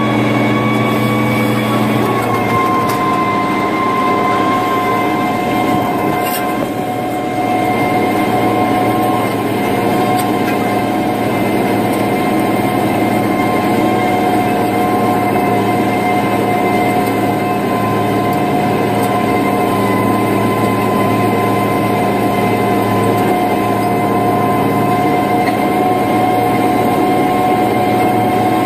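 International 3588 2+2 tractor's six-cylinder diesel running steadily under load while pulling a disc through corn stalks, with a steady whine over the engine. The engine note drops slightly about two seconds in.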